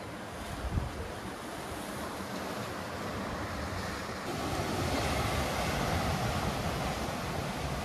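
Ocean surf washing against a rocky shore, with wind on the microphone and a short wind bump about a second in. About four seconds in the surf grows louder, as waves break and wash up onto a black sand beach.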